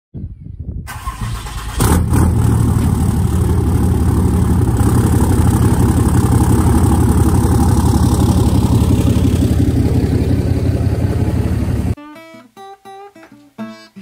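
2017 Ram 2500's 6.7-litre Cummins inline-six turbo-diesel, emissions-deleted with a 5-inch turbo-back exhaust, cranking and firing up about two seconds in, then idling loudly and steadily. It cuts off abruptly about twelve seconds in, and acoustic guitar music takes over.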